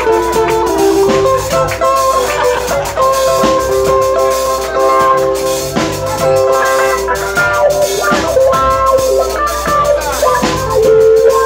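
Live band playing: guitars and a drum kit keep a steady beat under long held melody notes.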